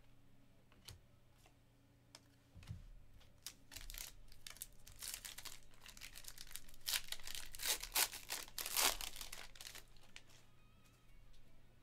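Stack of glossy trading cards being handled and slid against one another: a run of crisp rustles and clicks, sparse at first, busiest and loudest from about four to nine seconds in, then dying away.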